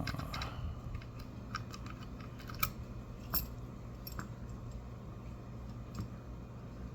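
Light, irregular metallic clicks and ticks from a Goal P pin-tumbler lock being worked by hand with its key in, over a low steady hum.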